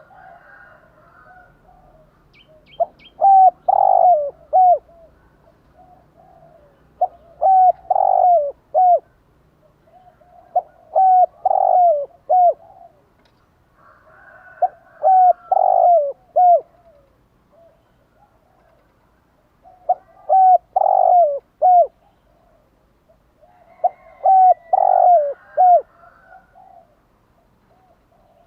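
Spotted dove cooing its phrased song, six times at roughly four-second intervals with one longer pause. Each phrase is a few short coos around a louder, drawn-out middle note. Faint chirps of other small birds run underneath.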